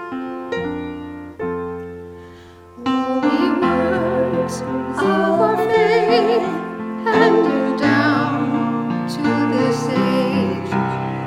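Piano playing slow, separate chords that ring and fade. About three seconds in, a singer enters with vibrato over the piano accompaniment.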